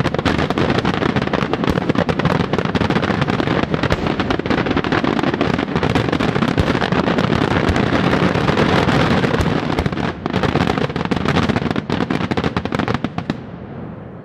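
Aerial fireworks in a rapid, continuous barrage of bangs and crackling that stops abruptly about a second before the end, with the echo fading away.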